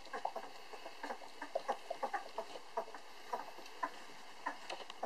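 Eleven-day-old Belgian Malinois puppies nursing on their mother: a string of short, irregular squeaks and suckling noises, several a second.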